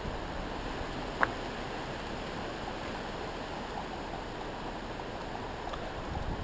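Storm wind blowing in high gusts, a steady noisy rush, with a single sharp click about a second in.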